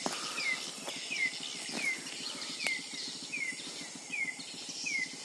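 Night-time insect chorus with a short falling chirp repeated about every two-thirds of a second, and a few faint clicks.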